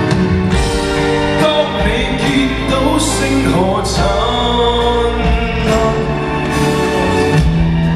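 Live Cantopop song: a male singer's voice over band accompaniment, played loud through a concert sound system.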